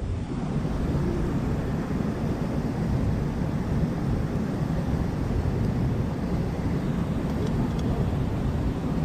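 Steady rush of a waterfall and fast-flowing river water.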